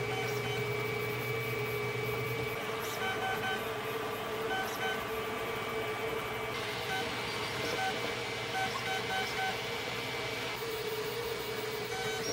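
Hypercube 300 CoreXY 3D printer printing: its stepper motors sound in short whining tones as the print head moves, over a steady fan hum.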